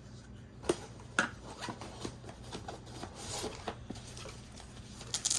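Unboxed accessories and packaging being handled: scattered light clicks and taps with faint rustling, and a denser burst of crinkling clicks near the end.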